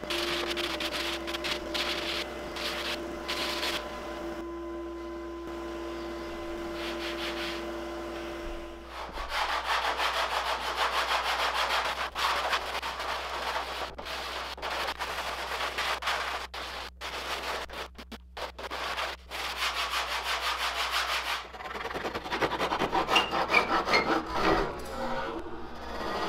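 Hand sanding and scraping the epoxy-coated wooden strips inside a strip-built kayak hull: repeated rasping strokes on wood, over a steady hum that stops about nine seconds in.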